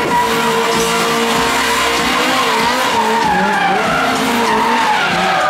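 Race car spinning donuts, its tyres squealing and skidding without a break. The engine is held at steady high revs, then rises and falls about two seconds in as the throttle is worked.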